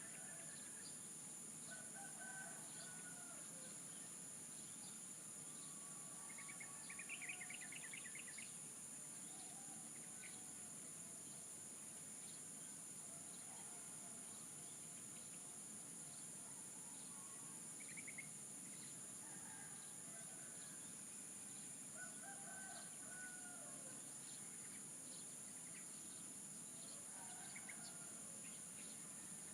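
Roosters crowing faintly several times, mixed with small birds chirping and a steady high-pitched insect drone.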